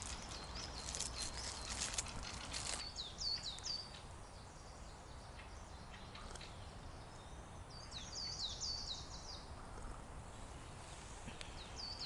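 Thrushes calling in several bursts of quick, high, curved notes. A rustling noise accompanies them for about the first three seconds.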